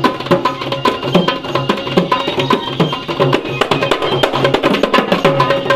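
Background music with a busy, fast percussion beat under a steady melody.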